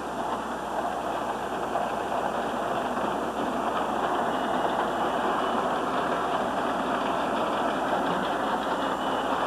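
Model train running on the layout track: a steady rolling rumble of wheels and motor.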